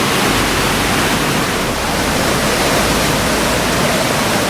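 Waterfall rushing: the steady, loud roar-like noise of St. Mary Falls pouring into its pool, unbroken throughout.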